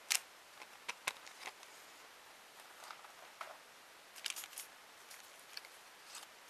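Faint, scattered rustling and light clicks of paper die-cut pieces and their wrapping being handled, with a short cluster of crinkles a little past halfway.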